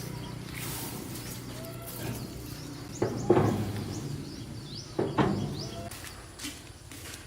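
Birds chirping in short rising notes, with two louder, sharp sounds about three and five seconds in.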